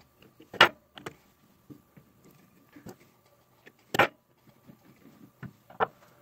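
Scattered small clicks and taps of needle-nose pliers and wire jumpers being worked on a screw terminal strip of a circuit board, the sharpest about half a second in and again about four seconds in.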